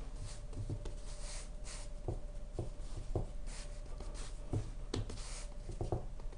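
Hands pressing and smoothing yeasted bread dough on a floured wooden board: faint, repeated brushing and rubbing with a few light taps.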